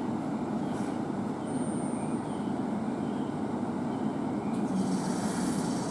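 Steady rumble of a train at a station, with a high hiss coming in about four and a half seconds in.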